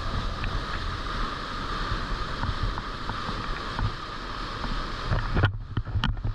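Rushing river water and wind buffeting a point-of-view camera's microphone while surfing a river wave. Near the end the sound turns duller, with a few sharp knocks.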